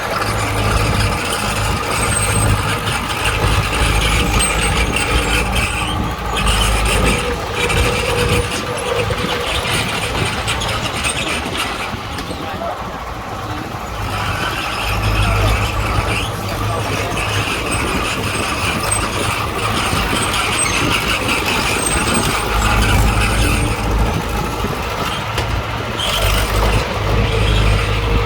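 Bulldozer's diesel engine working under load as it pushes soil, its deep rumble swelling and easing, dropping off for a few seconds midway before building again.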